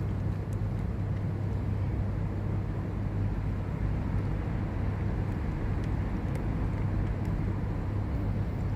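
Steady low outdoor rumble with a constant hum, with a few faint clicks.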